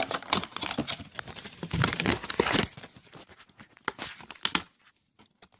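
Plastic and cardboard packaging being crinkled and pulled apart by hand as a webcam is taken out of its box, a dense run of rustling and tearing that thins to a few scattered crackles and clicks after about three seconds and stops shortly before the end.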